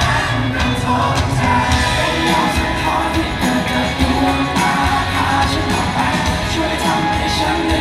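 A rock band playing live with a lead singer, heard through the venue's PA from the audience.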